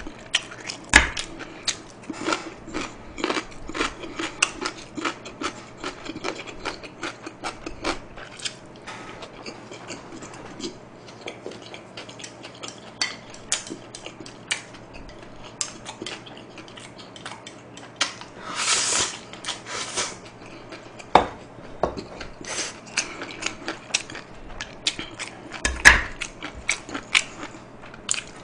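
Close-miked eating: chopsticks and a spoon clicking and scraping against ceramic bowls and plates, with chewing, in a quick irregular run of small ticks and a few louder knocks. A longer noisy rush comes about two-thirds of the way through.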